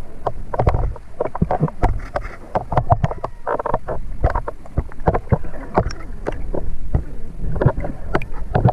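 Underwater sound heard through a camera housing: water noise with dense, irregular clicking and crackling.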